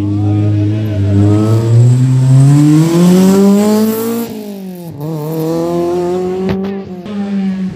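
Rally car accelerating hard out of a corner and away, its engine revs climbing steadily. About four seconds in the pitch drops suddenly as it shifts up, then climbs again. A sharp click comes near the end.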